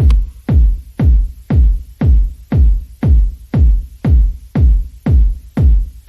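Electronic background music driven by a heavy kick drum, about two beats a second.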